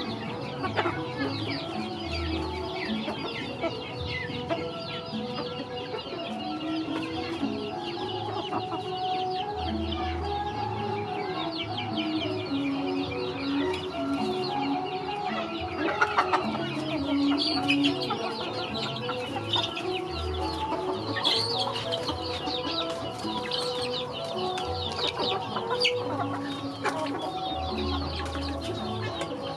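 A flock of young chickens clucking while they peck at food in a woven basket, with many quick pecking taps.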